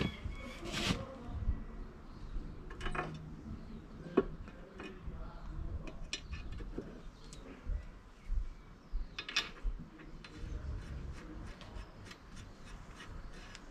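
Metal motorbike parts and hand tools clinking, knocking and scraping as they are handled and fitted to a bare dirt-bike frame: scattered sharp clicks and knocks, the sharpest about four seconds in.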